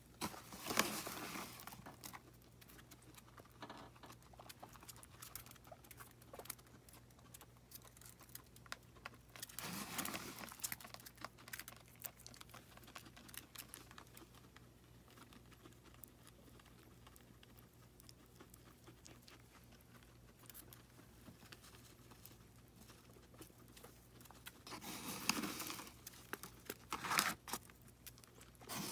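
Guinea pigs moving about on a hardwood floor and nibbling food: a steady scatter of small clicks and light patter. Louder rustling comes about a second in, around ten seconds in and near the end.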